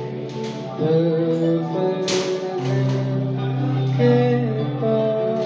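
Live acoustic music: a man singing held, wavering notes over a strummed acoustic guitar and a sustained keyboard, with a strong strum about two seconds in.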